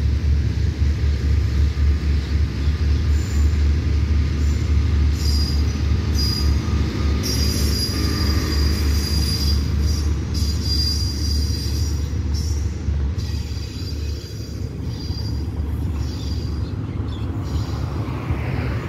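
Rapid train 171's passenger coaches rolling past with a heavy low rumble, their wheels squealing high from about five seconds in until about thirteen seconds. The rumble eases near the end as the last coaches pass.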